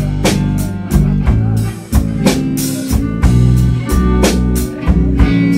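Live blues band playing a slow blues: electric guitar and bass guitar over a steady drum-kit beat, with no singing.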